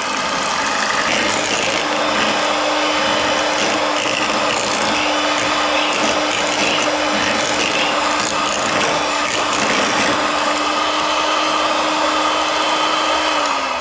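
Electric hand mixer running at a steady speed, its twin beaters whipping mascarpone and whipping cream in a ceramic bowl. The motor's hum drops in pitch near the end as it slows.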